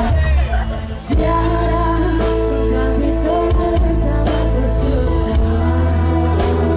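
Live dangdut band playing through a PA system with a woman singing into a microphone over long held notes from the band. The music drops briefly about a second in, then carries on.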